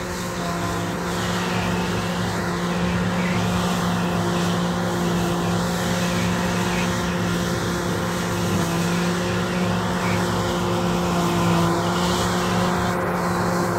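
Combine harvester running steadily as it cuts and threshes red fescue, its engine and threshing machinery giving a constant hum.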